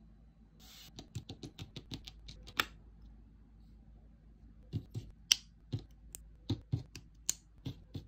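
Plastic parts of a Blokees Transformers snap-together figure clicking as they are pressed and snapped into place. A quick run of about ten small clicks ends in one sharper snap, then after a pause of about two seconds more clicks follow, spaced a few tenths of a second apart.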